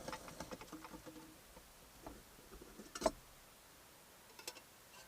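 Light clicks and knocks of a utensil against a cooking pot while a boiled egg is lifted out: a run of faint ticks at first, one sharper knock about three seconds in and a lighter one a little later.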